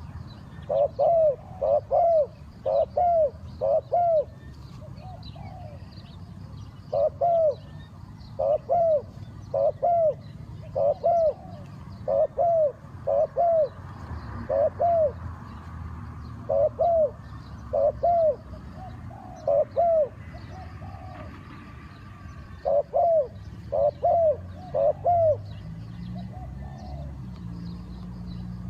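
Spotted dove cooing: loud, repeated coo notes in short phrases of two to four, with brief pauses between phrases. Faint chirps of small birds sound behind.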